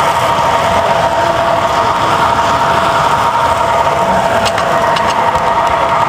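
Toy trains running on three-rail tinplate track: a steady rumbling whir with a high, steady whine from the electric motors, and a few light clicks about four to five seconds in.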